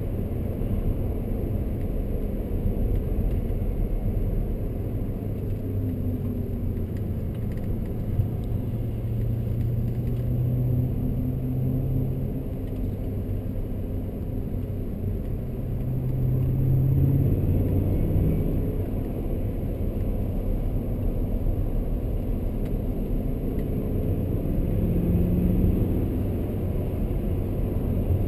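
A 2003 BMW M5's 4.9-litre V8 heard from inside the cabin while driving, over a steady rumble of road and tyre noise. The engine note rises and falls with the throttle through the bends, swelling louder a little past halfway and again near the end.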